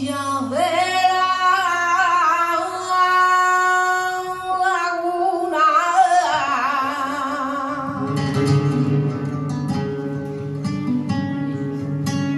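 A woman singing a flamenco zambra over flamenco guitar, in long ornamented notes that waver in pitch. About eight seconds in the voice drops away and the guitar carries on alone with repeated strummed chords.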